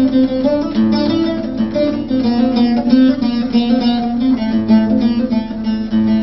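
Instrumental interlude of a Kurdish hayran song: a plucked string instrument plays quick runs of notes over sustained lower notes, with no singing.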